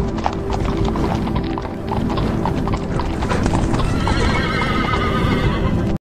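Galloping horses' hoofbeats, a rapid clatter of hoof strikes, over a music bed, with a horse whinnying from about two-thirds of the way through.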